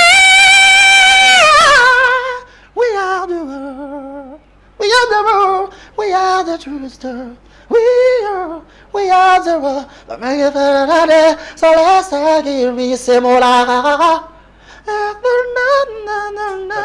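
A man singing unaccompanied in a high voice: a long held note for the first two seconds, then a string of short phrases with sliding, wavering pitch and brief pauses between them.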